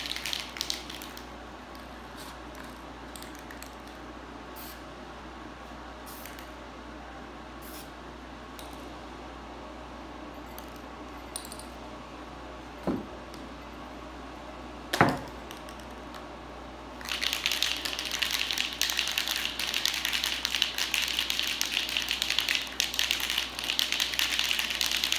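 Aerosol spray-paint can spraying in an uneven, continuous hiss, starting about two thirds of the way through, after two short knocks.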